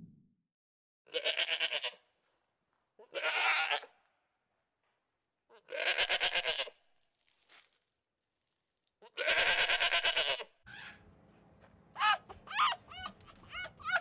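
Domestic goat bleating four times, each a wavering bleat about a second long with gaps of one to two seconds. Near the end comes a quick run of short, high yelps from foxes.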